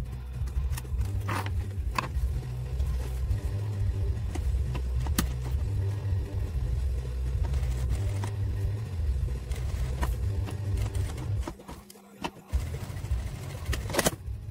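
Juki industrial sewing machine running, a steady low rumble with scattered clicks, stopping for about a second near the end before starting again.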